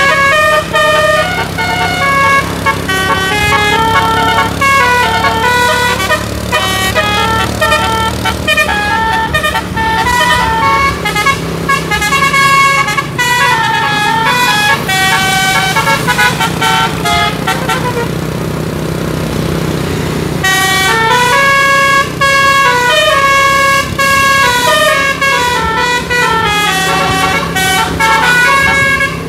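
Tour bus's DAV musical air horn (telolet) playing quick stepping melodies of several notes at once, over the bus's running engine. The tune breaks off for about two seconds two-thirds of the way through, then starts again.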